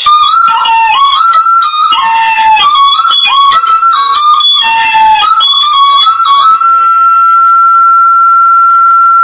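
Hmong raj bamboo flute playing a quick run of short notes, then holding one long steady note from about two thirds of the way in.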